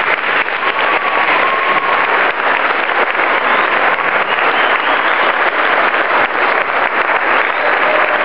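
Large audience clapping steadily in a dense, continuous ovation that cuts off suddenly at the end.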